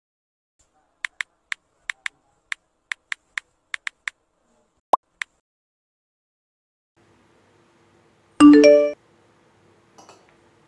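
Smartphone keyboard tap sounds: about a dozen quick clicks while a message is typed, ending with a short swoosh as it is sent. About eight and a half seconds in, a brief, loud notification chime of several quick notes.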